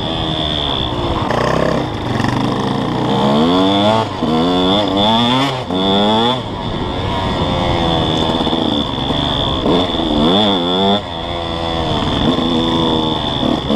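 KTM 150 SX two-stroke single-cylinder dirt bike engine being ridden hard on a trail. The revs climb in rising sweeps again and again, then drop back as the throttle is eased or a gear changes.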